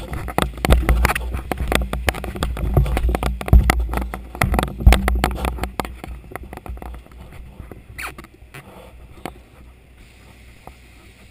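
Handling noise: the camera's housing scraping, rustling and bumping against dark fabric, with dense scratchy clicks and low thumps for about six seconds, then only a few scattered clicks.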